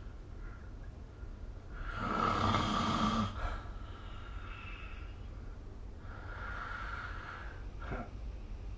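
A sleeping person snoring. One loud, rough snore about two seconds in lasts over a second. Two quieter breaths follow, then a brief click near the end.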